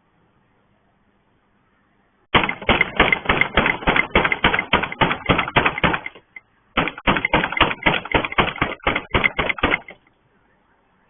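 Rapid, loud banging on a gate, about six blows a second, in two runs of about four and three seconds with a short break between them, picked up by a surveillance camera's microphone.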